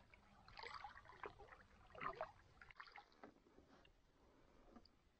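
Faint splashing and dripping of a canoe paddle stroking through the water, loudest about two seconds in and thinning out after about three seconds.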